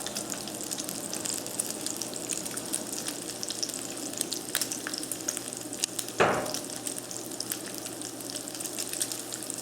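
Diced bacon sizzling in hot oil in a sauté pan: a steady frying hiss dotted with many small crackling pops as it browns. One short, louder sound about six seconds in.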